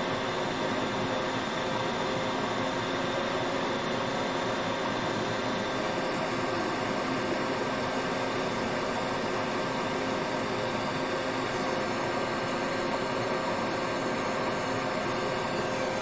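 Steady blowing hiss and hum of a fan or blower on the repair bench, unchanging, with a few faint constant tones in it.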